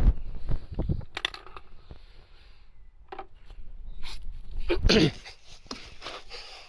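Irregular clicks, knocks and rustling of objects being handled, with a louder scraping burst about five seconds in.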